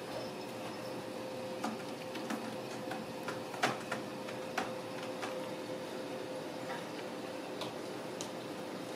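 Ragdoll kittens playing: scattered, irregular light taps and clicks from their paws on the wooden floor and cat tree, the loudest a little over three and a half seconds in, over a steady room hum.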